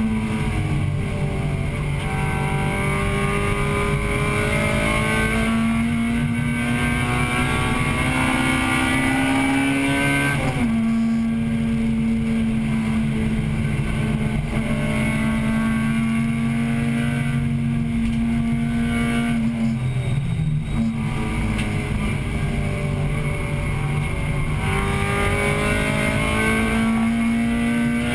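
1998 Acura Integra Type-R's 1.8-litre VTEC four-cylinder engine heard from inside the cabin, running at high revs under racing load. Its pitch climbs slowly, drops sharply about a third of the way in, dips briefly about two-thirds in, then climbs again near the end, over steady road and wind noise.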